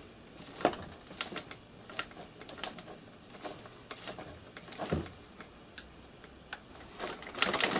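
Scattered light clicks and taps of small parts and hand tools as an RC car's suspension is fitted back together, irregular and spaced out, with a busier run of clicks near the end.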